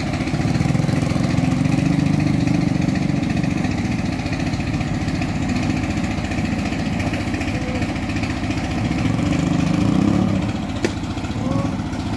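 A small engine running steadily at an even speed, with one short knock near the end.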